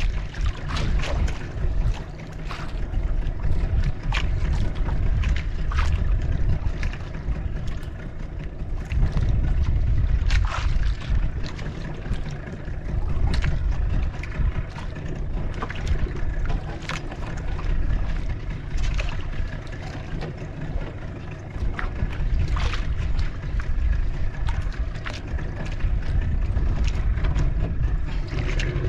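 Low rumbling wind and water noise aboard a small fishing boat at sea, with scattered sharp clicks and knocks throughout.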